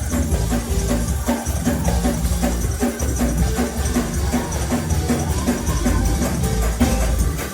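Fast, driving gospel praise-break music: tambourines beaten in a quick, even rhythm over drums and a heavy bass line.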